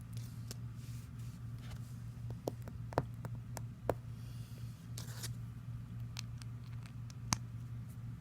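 LEGO pieces being handled and pressed together: scattered sharp clicks, a few louder snaps and a brief rustle about five seconds in, over a steady low hum.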